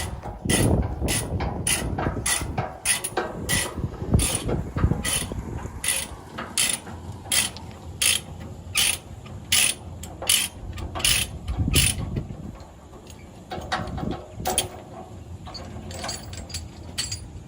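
Ratchet load binder being cranked to tighten a tie-down chain: sharp metallic clicks about two a second, stopping about two-thirds of the way through, followed by a few scattered clicks.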